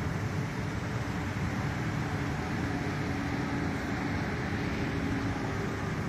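Steady low rumble of outdoor background noise with a faint, even hum.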